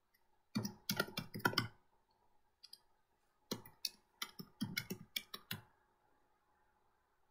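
Typing on a computer keyboard: two quick runs of keystroke clicks, each lasting a second or two, separated by a pause of about two seconds.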